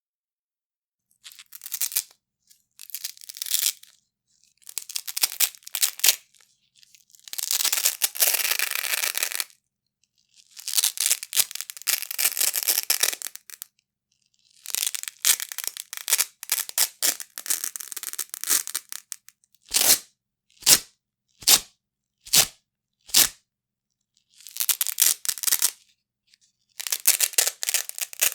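Large pieces of Velcro (hook-and-loop fastener) ripped apart over and over at different speeds: crackling rips from under a second to a few seconds long, with silent gaps between. About two-thirds of the way through come five short, sharp rips in quick succession, then longer rips again.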